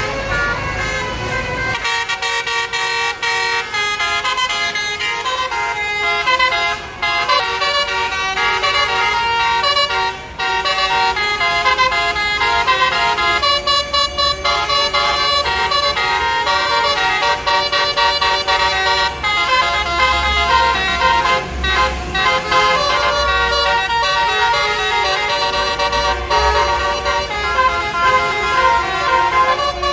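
A tour bus's roof-mounted basuri musical air horns play a long, continuous melody of changing notes, starting about two seconds in. A bus engine rumbles underneath.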